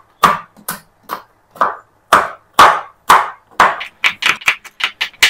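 Kitchen knife chopping cashew nuts on a wooden cutting board: a series of sharp knocks of the blade on the board, about two a second, quickening near the end.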